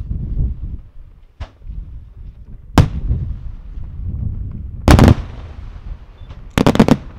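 Aerial firework shells bursting in a night display. A faint report comes about a second and a half in, a sharp one near three seconds, a heavier blast around five seconds, and a quick cluster of reports near the end, with a low rumble between the bangs.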